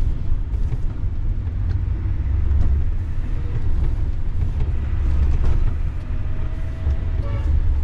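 Steady low rumble of a long-haul truck's engine and tyres while driving, heard from inside the cab.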